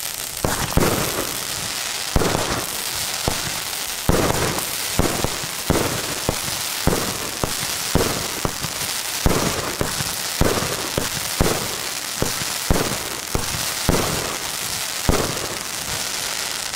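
Argento Demonio firework cake firing a rapid run of shots, a sharp report roughly every half second to a second, over continuous crackling from the bursts.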